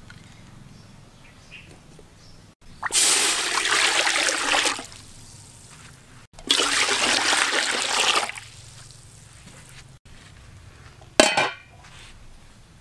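Water poured into an aluminium cooking pot in two pours of about two seconds each, then a short clatter near the end as the aluminium lid is set on the pot.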